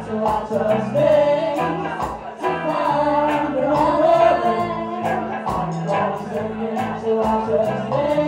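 A live band playing a reggae song: sung vocals over electric and acoustic guitars, bass and drums with a steady beat.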